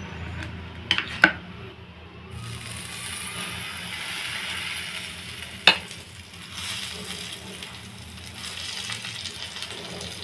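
Butter-spread bread slices and melting butter sizzling on a hot tawa griddle. The sizzle swells about two seconds in and holds steady, with a few light taps early on and one sharp click near the middle.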